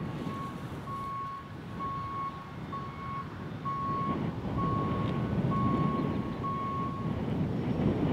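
Vehicle backup alarm beeping steadily, one tone roughly once a second, stopping about seven seconds in, over a low rumble that grows louder toward the end.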